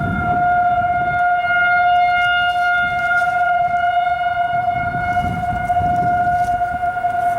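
Federal Signal 2001-series tornado sirens sounding a steady alert tone during a test: one held pitch with overtones that neither rises nor falls.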